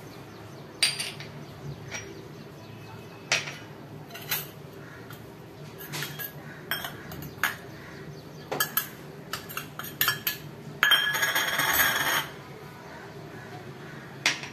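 Steel spoons and small stainless-steel bowls clinking and tapping as spices are spooned and tipped onto a steel plate: scattered sharp clinks, with a scraping rattle lasting about a second near the end.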